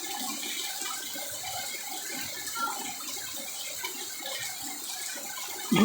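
Heavy rain pouring down, with water running and splashing.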